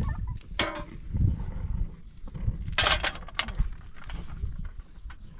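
Livestock calling, mixed with scattered sharp knocks.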